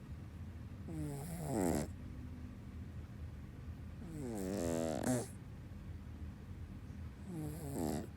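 A dog snoring: three snores about three seconds apart, each a falling whistly tone that ends in a short breathy rush of air.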